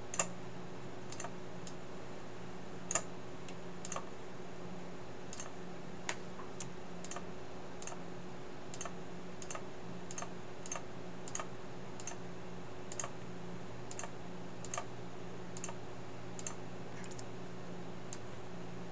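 Irregular single clicks, roughly one a second, from someone working a computer's mouse and keyboard, over a low steady hum.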